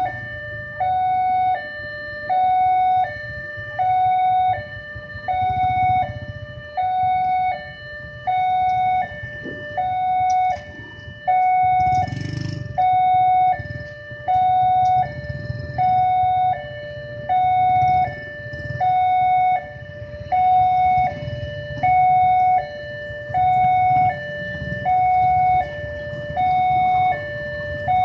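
Electronic level-crossing warning alarm sounding its two-tone signal, a higher and a lower note switching back and forth about once a second, warning that a train is approaching. Under it runs the low rumble of waiting motorcycle engines, with a brief louder burst about twelve seconds in.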